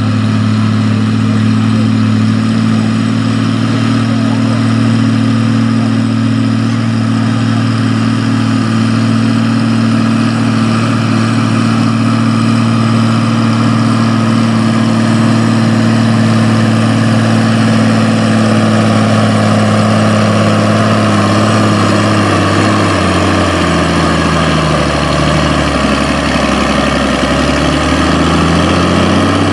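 Farm pulling tractor's engine run hard and steady while pulling the sled. About twenty-two seconds in its pitch starts dropping in steps as the engine bogs down under the sled's growing load.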